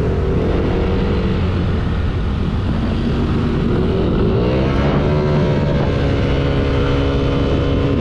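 A Yamaha Aerox 155 scooter's single-cylinder engine is running under way through its CVT. Its pitch sags slightly, then climbs about halfway through as the scooter accelerates, and holds steady near the end.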